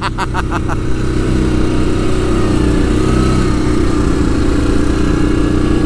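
Yamaha Grizzly ATV's single-cylinder engine running at a steady trail-riding speed, a continuous even drone heard from the handlebars.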